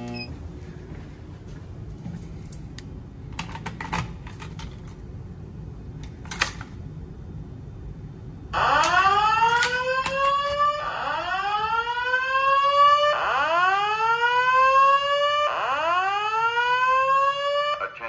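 Simplex voice-evacuation fire alarm speaker sounding a loud rising whoop tone, starting about eight and a half seconds in and repeating four times, roughly every two and a quarter seconds. Before it, a few scattered clicks and rattles.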